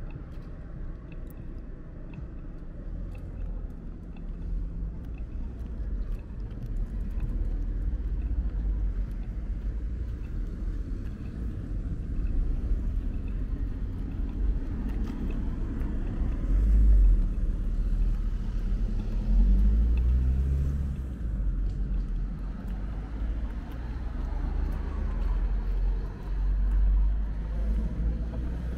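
City street traffic: cars passing, a low rumble that swells as each vehicle goes by, loudest about 17 and 20 seconds in.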